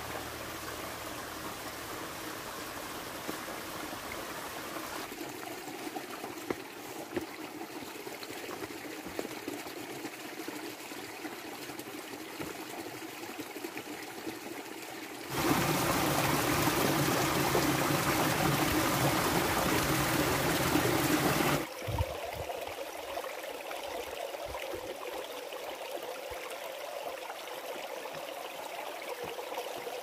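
Small mountain stream trickling over and between boulders. A stretch about halfway through is much louder, where a small cascade into a pool is heard close up; it cuts off abruptly after about six seconds.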